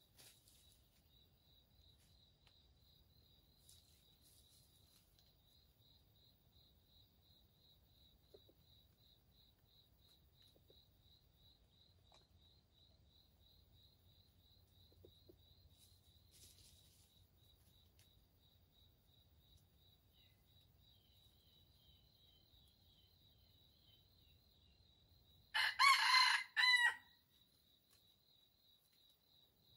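Rooster crowing once near the end, a short crow of about a second and a half in two parts, the loudest sound here. Before it, a faint, steady, rapidly pulsing high trill runs in the background and fades out.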